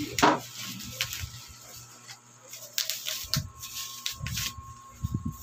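Bubble wrap and plastic wrapping rustling and crackling as they are handled and pulled off a metal office-chair base. There is a loud rustle just after the start, then scattered crackles and a few soft thumps.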